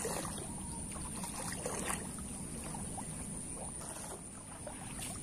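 Water splashing and sloshing as a person wades through a shallow, muddy creek, with the loudest splashes near the start and about two seconds in, over a steady low rumble.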